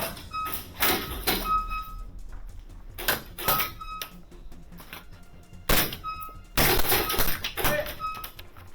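Several bursts of airsoft gunfire indoors: clusters of sharp cracks and BB impacts, the longest volley about six and a half to seven and a half seconds in. Background music plays underneath.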